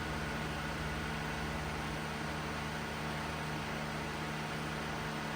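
2003 Acura RSX's 2.0-litre four-cylinder engine idling steadily, running on freshly installed coil packs and spark plugs fitted to cure misfires on all four cylinders.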